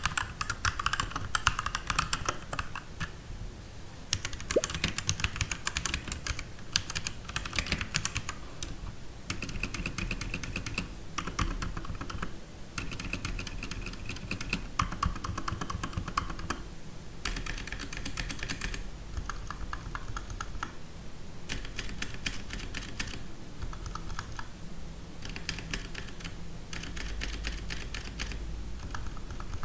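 Typing on mechanical keyboards with linear red switches: quick runs of keystroke clicks with short pauses between the runs.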